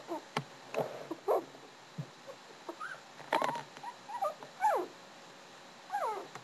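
Chinese Crested puppies play-fighting, giving many short high yips and whines, most of them falling in pitch, with a few light knocks from their scuffling.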